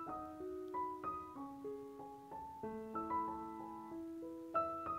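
Soft background piano music: a slow run of single notes, each held and ringing into the next.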